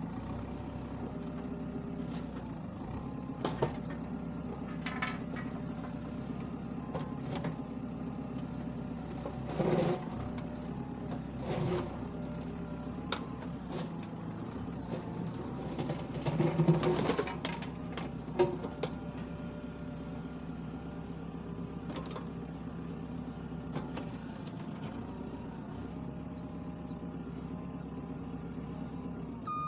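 JCB 3DX backhoe loader's diesel engine running steadily, with scattered knocks, clanks and creaks from the working machine. The loudest clanks come about ten and seventeen seconds in.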